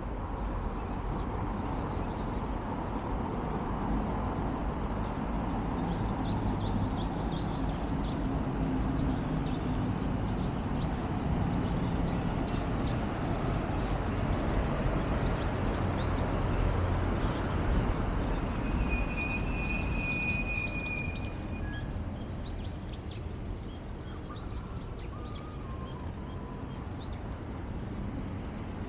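Outdoor park ambience: a steady low rumble with small birds chirping on and off throughout, and a short held higher note about two-thirds of the way through.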